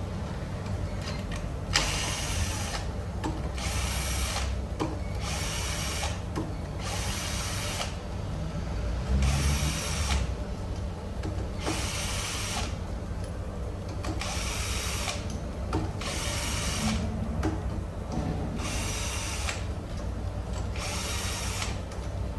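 Ratchet wrench worked in short repeated bursts, one every one and a half to two seconds, over a steady low hum.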